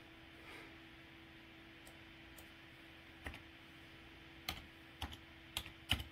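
Computer keyboard keys tapped a few times at irregular intervals, mostly in the second half, over a faint steady hum.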